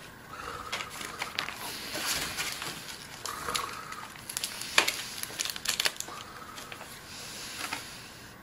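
Paper rustling with a run of sharp clicks and knocks, densest in the middle, as paper stick puppets are handled and swapped.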